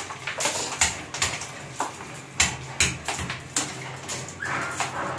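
Hammer striking a chisel held to the edge of a cut-out in the wall cladding, a series of sharp, irregular taps as the hole's edge is chipped out.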